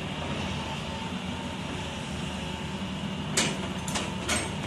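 Hitachi hydraulic excavator's diesel engine running steadily as it works, with three sharp clanks close together near the end as the bucket goes into the gravel pile.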